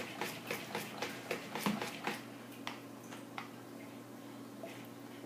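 Stick blender, switched off, stirring soap batter in a bowl: its head knocks against the bowl about three times a second, ending in one louder knock. After that only a few scattered clicks remain over a faint steady hum.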